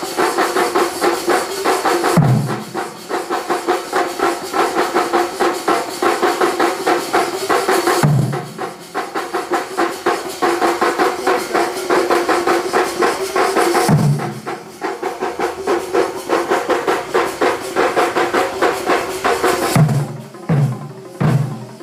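A large Kerala thambolam drum band playing together, many drums struck with sticks in a fast, dense, even rhythm. A deep boom lands about every six seconds, and several come in quick succession near the end.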